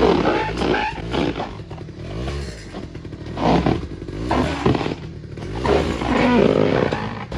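Small engine of a kids' Polaris Predator quad revving up and down, rising and falling in pitch several times as it slides around on a soap-slicked trampoline mat.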